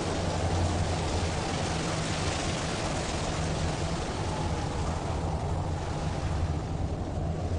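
Steady rushing noise with a low rumble beneath it; the hiss thins out about five seconds in.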